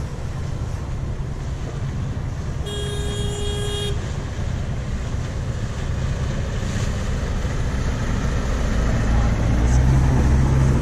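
Ferry engine droning under the rush of wind and water, growing louder in the last couple of seconds. About three seconds in, a boat horn toots once for about a second.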